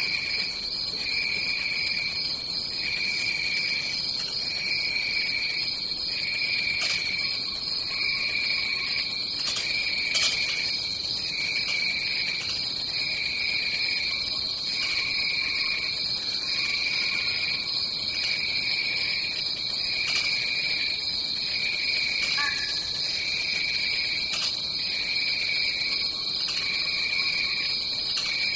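Tropical rainforest night ambience of insects: a steady high-pitched trill runs throughout, over a lower chirping trill that pulses on and off about once a second, with a few brief scattered calls.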